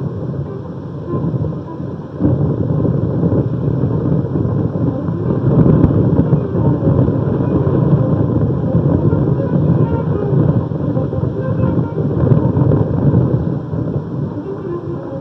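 Steady low rumble of city street traffic, louder from about two seconds in.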